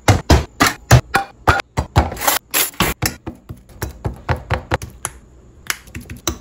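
Cutlery striking a ceramic plate as a banana is cut and mashed on it: rapid, sharp taps about three a second, pausing briefly about five seconds in before starting again.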